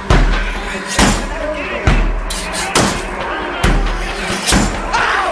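Heavy, dark rock music: a hard, deep drum hit about once a second, with a voice woven between the beats.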